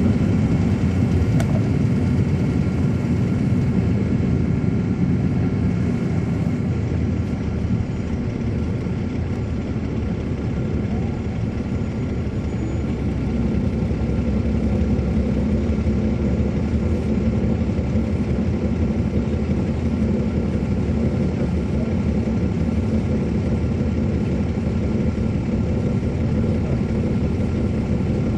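A 2007 MCI D4500CL transit coach's Caterpillar C13 ACERT diesel engine running, heard from inside the bus as a steady drone. It eases off a little about eight seconds in and builds again a few seconds later.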